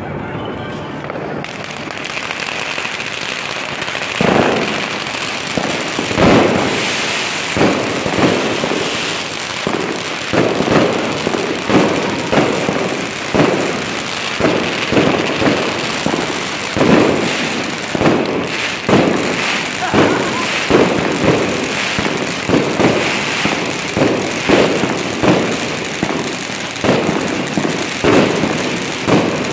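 Aerial firework shells bursting overhead in a dense barrage: sharp bangs about one to two a second over a continuous hiss, the bangs starting a few seconds in.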